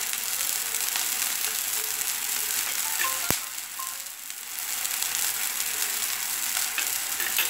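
Water and oil simmering and hissing in a hot kadhai with chopped onion, with one sharp click about three seconds in.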